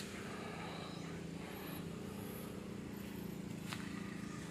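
Steady low engine hum in the background, with a faint click about three and a half seconds in.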